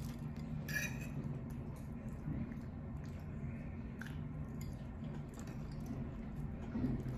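Close-miked eating: a person chewing soft food with wet mouth sounds, and a metal fork clicking and scraping against the plate, most clearly about a second in. A steady low hum runs underneath.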